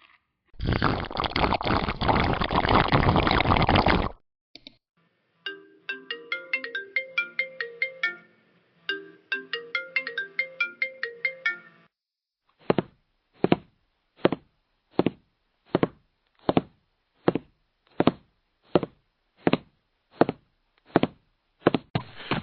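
A run of stock editing-app sound effects: first a noisy burst lasting about three and a half seconds, then a short tinkling tune like a phone ringtone, then sharp knocks spaced evenly, about three every two seconds, for the second half.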